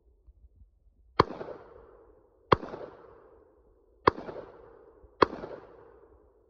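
Anderson Manufacturing AR-15 rifle in 5.56/.223 fired four times, a shot every second or so, each crack followed by a rolling echo that dies away.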